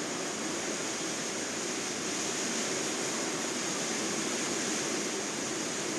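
Steady background hiss of room noise, with no distinct sounds.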